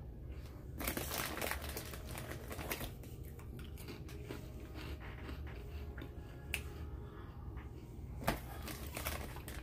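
Chocolate wrapper crinkling and rustling in bursts, strongest about a second in and again near the end, with a couple of sharp clicks in between.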